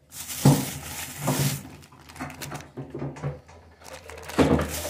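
Thin plastic bags crinkling and rustling in hands as food is squeezed and emptied out of them, in several short bursts, the longest near the end.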